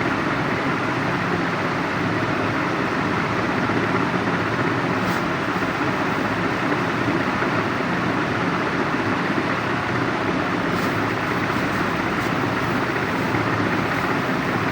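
Steady mechanical rushing noise that holds at an even level without changing.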